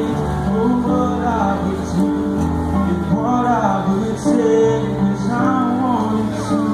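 A man singing to his own grand piano accompaniment: held piano chords under a sung melody.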